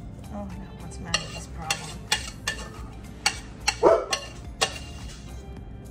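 A metal spoon scraping and knocking against a stainless steel saucepan, scooping mashed potato mixture out into a baking pan, heard as about eight sharp clicks and taps. A short dog bark comes a little under four seconds in.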